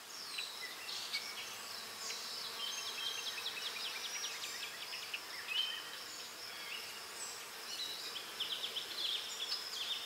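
Tropical forest ambience: many short, high chirps and rapid ticking trills from insects, over a faint steady hiss.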